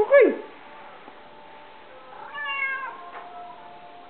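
Siamese-mix cat meowing twice: a short, loud meow that drops sharply in pitch right at the start, then a longer, quieter meow a little over two seconds in.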